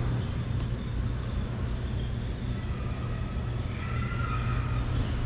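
Steady low hum over background room noise, with faint high tones about four seconds in that last about a second.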